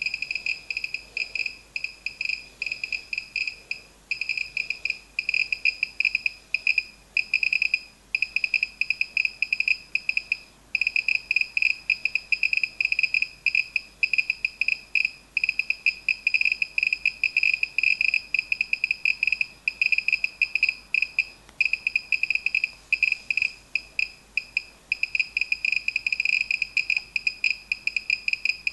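Gamma-Scout Geiger counter's ticker beeping rapidly and irregularly, one short high chirp for each detected pulse, so many that they crowd into a dense crackle with brief gaps. It is counting radiation from a pitchblende (uranium ore) sample set on its detector: a high count rate.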